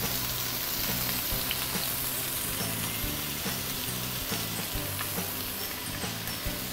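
A whole fish sizzling steadily in smoking-hot oil in a non-stick frying pan, the oil hot enough to start crisping the skin on the underside. Soft background music with a repeating low line runs underneath.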